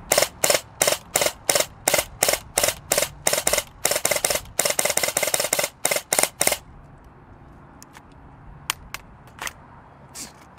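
Airsoft electric gun (RWA Battle Arms Development SBR AEG) firing: a steady string of single shots about three a second, a short rapid burst about four and a half seconds in, a few more single shots, then a few fainter shots near the end.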